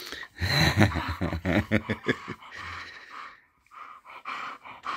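English bull terrier giving a low, pulsing growl-like grumble for about two seconds, then going quieter: a contented play grumble while being rubbed.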